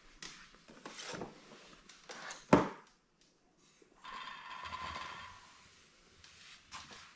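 An AR-15 rifle being handled on a wooden floor: a few light knocks and clicks, one sharp knock about two and a half seconds in, then a scraping rustle as the rifle is picked up by its handguard.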